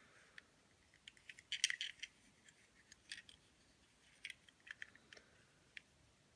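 Faint, scattered light clicks and rattles of a small toy train engine being handled and turned over, its wheels and body ticking against the fingers, with a short cluster of clicks about one and a half seconds in.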